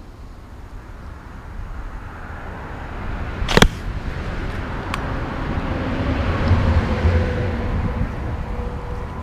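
A rubber-band fishing slingshot firing a line-tethered arrow: one sharp, loud snap a little over a third of the way in as the bands release, then a faint click just over a second later. A rushing noise with a low rumble builds up around the shot and stays through the rest.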